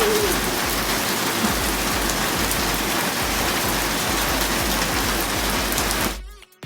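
Heavy rain falling steadily, cutting off abruptly about six seconds in.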